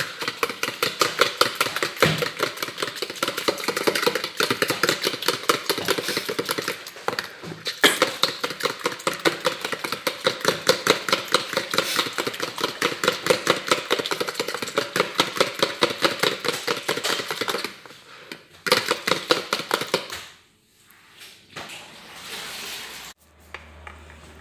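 Wet egg-and-milk batter being beaten with the chicken in a bowl, a rapid steady rhythm of several strokes a second. It stops about 17 seconds in, followed by a few more strokes and quieter irregular handling.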